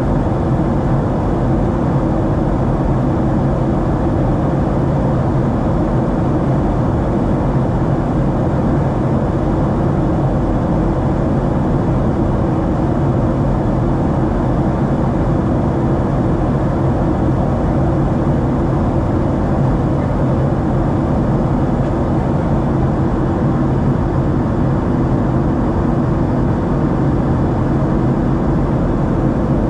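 Steady cabin noise of a Boeing 737-700 in flight: its CFM56 turbofan engines and the airflow make an even, unbroken rush with a steady low hum beneath it.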